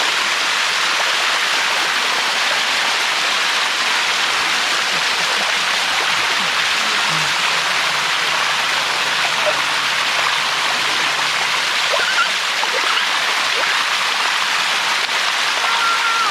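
Steady rush of water from a waterfall spilling over rock, an even hiss with no change in level.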